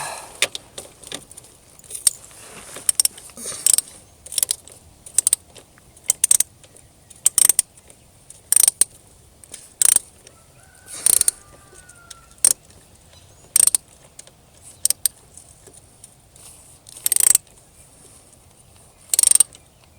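Half-inch ratchet wrench clicking in short, irregular strokes, about one a second, as a 17 mm oil drain bolt is worked loose on a moped engine.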